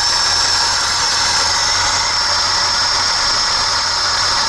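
VAZ 2104's carburetted four-cylinder engine idling steadily, heard close up at the open bonnet, running on a rich idle mixture.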